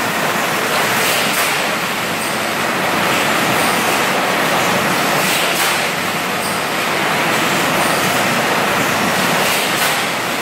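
High-pressure bottle washing machine (80 bar system) running: a loud, steady hiss of water jets and machinery, with a few brief sharper hisses over it.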